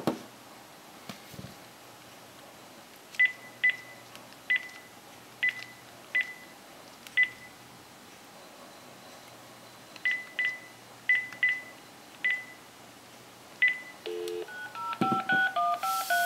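Telephone keypad: about a dozen single key-press beeps at an uneven pace as a number is keyed in. Near the end a brief dial tone sounds, then a quick run of touch-tone (DTMF) dialing tones as the number is sent.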